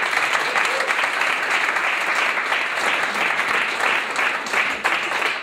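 Audience applauding: a roomful of seated people clapping their hands together, dense and steady.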